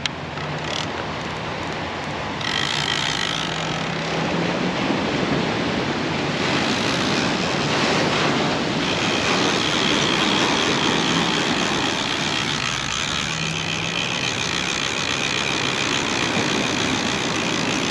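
Steady rushing noise of shoreline surf and wind buffeting the microphone, with faint steady tones under it.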